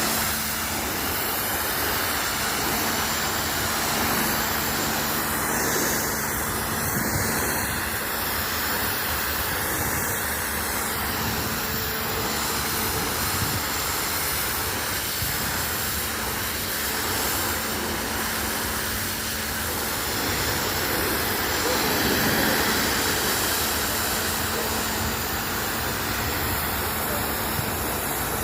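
IPC PW-H50 high-pressure washer running steadily: a constant pump hum under the continuous hiss of the water jet.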